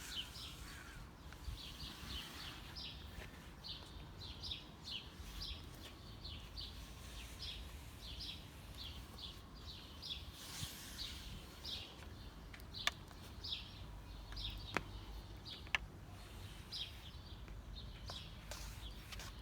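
A bird chirping repeatedly, short high chirps about twice a second, over a low outdoor rumble. A few sharp clicks stand out in the second half.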